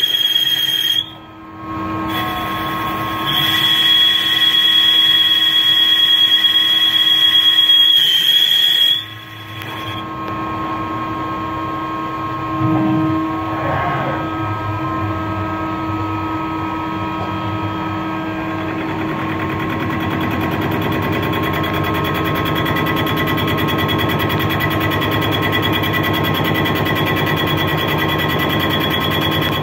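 Mazak CNC lathe turning a crankshaft: the spinning workpiece and cutting tool give a steady machine sound with a high whine. The sound drops out briefly about a second in and again near nine seconds. After that the whine fades and the machine runs on with a fast, even rattle.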